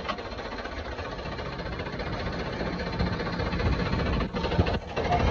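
Tractor engine running as the tractor drives along, heard up close from the seat and growing louder over the few seconds.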